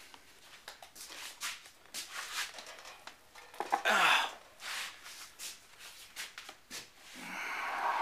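A man breathing and sighing close to the microphone: a short, loud exhale about four seconds in and a longer one near the end, among scattered clicks and rustles from the hand-held camera being moved.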